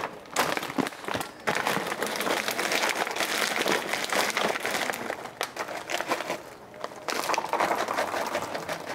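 Plastic pouch of frozen raw dog food crinkling as it is handled and tipped, with the hard frozen cubes clattering into ceramic bowls in many small clicks. It comes in two pours, the second starting about seven seconds in.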